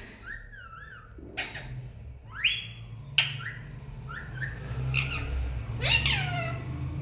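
Pet parrot calling: a run of separate whistles and squawks, some wavering and some gliding up or down in pitch, with the loudest falling calls near the end.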